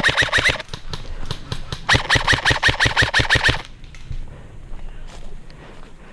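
Airsoft electric rifle firing full-auto bursts: one ends about half a second in, and a second runs from about two seconds in for nearly two seconds. Each is a rapid, even string of sharp cracks, with fainter scattered knocks afterwards.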